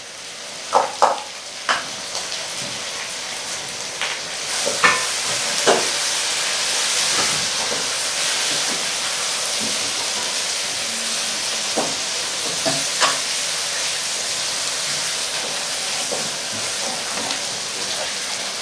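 Chicken and chopped tomatoes sizzling as they fry in a wok, a steady hiss that grows louder about four seconds in. A spatula stirs them with scattered knocks against the pan.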